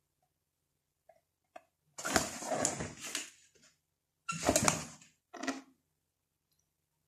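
Cardboard packaging box of a toy doll cradle being handled, rustling and scraping. A couple of small clicks come first, then three bursts: the first and longest about two seconds in, two shorter ones a little after four and five seconds in.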